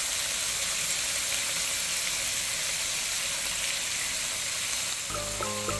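Abalone stir-fry sizzling in a frying pan, a steady hiss. Soft music comes in about five seconds in.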